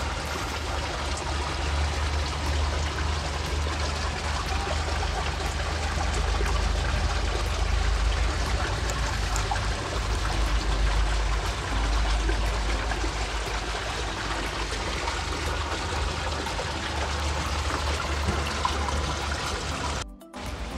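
Water pouring and splashing steadily into a koi pond from an inflow, an even rushing splash with a low rumble underneath.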